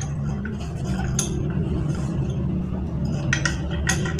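Light metal clinks and scraping as the parts of a monoblock water pump's metal housing are handled and fitted together, a sharp click about a second in and a few more near the end, over a steady low hum.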